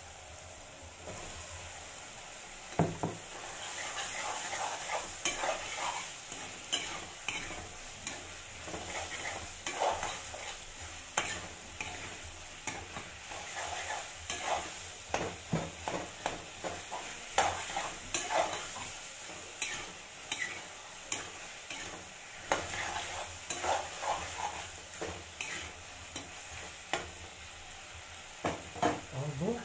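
Diced potatoes going into a wok of hot tomato-onion masala with a loud clatter about three seconds in, then frying with a steady sizzle. A slotted spatula stirs them, scraping and knocking against the metal wok in many short strokes.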